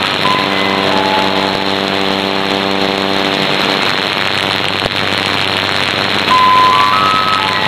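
Shortwave AM broadcast received through a software-defined radio: steady band noise and hiss with a simple electronic melody coming through it, a held chord of steady tones at first, then hiss alone for a couple of seconds, then single tones stepping up near the end.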